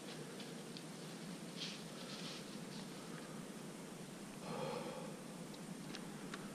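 Faint rustling and a few small clicks from the hunter moving and handling gear in a tree stand, with a slightly louder rustle about four and a half seconds in, over a steady low hiss.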